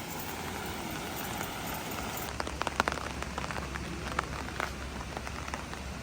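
Rain falling steadily, with sharp individual drop taps from about two seconds in.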